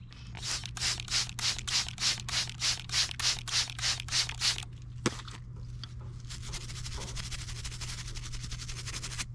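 A hand trigger spray bottle squirting onto a rock in quick pumps, about four a second, for around four seconds. After a single sharp click, a small plastic-bristled brush scrubs the rock in a fast, steady rub.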